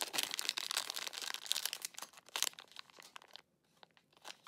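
Thin plastic packet crinkling as it is handled in the fingers. It is busiest in the first two seconds or so and dies away around three seconds in, with a brief return near the end.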